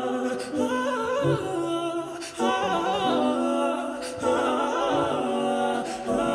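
Background music: a song with a singing voice carrying a wavering melody over steady held notes.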